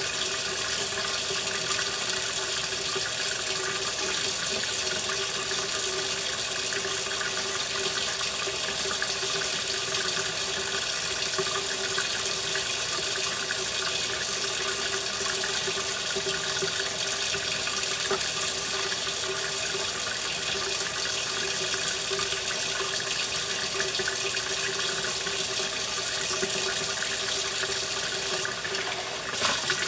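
Kitchen faucet running steadily into a stainless-steel sink: a constant, even rush of water.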